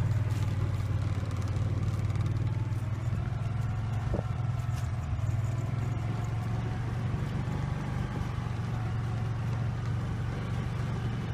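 A vehicle's engine running steadily, a constant low hum with road or wind noise over it and one small click about four seconds in.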